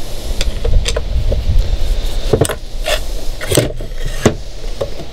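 Clinks, clicks and knocks of a binnacle control box's metal cover and housing being handled and taken off. The loudest knocks come in the second half, over a low steady rumble.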